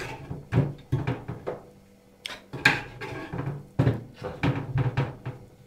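Kitchen knife chopping the heads off Pacific saury on a wooden cutting board: a run of irregular sharp knocks of the blade against the board, with a short lull about two seconds in.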